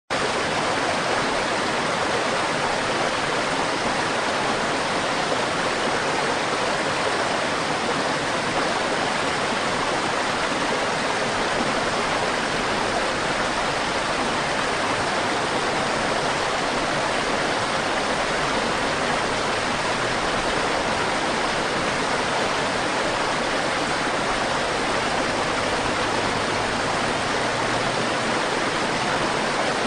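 River water rushing and burbling steadily, an even wash of flowing-water noise with no breaks.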